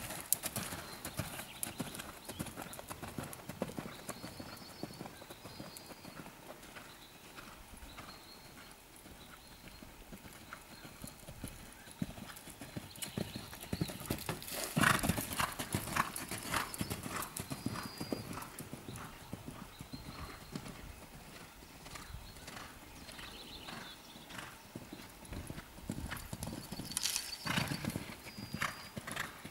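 A horse's hooves cantering on a sand arena, a continuous run of dull hoofbeats. The hoofbeats get louder about halfway through and again near the end as the horse takes off and lands over show-jumping fences.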